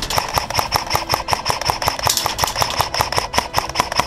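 Rapid, continuous clicking of airsoft gunfire, about ten clicks a second, with a steady high tone underneath.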